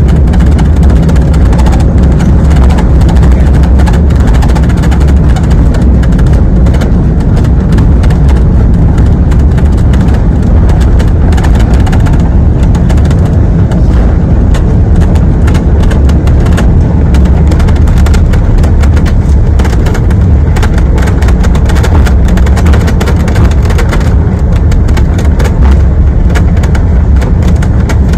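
Airliner cabin noise on the ground just after landing: a loud, steady, deep rumble from the wheels on the tarmac and the engines, unchanged throughout.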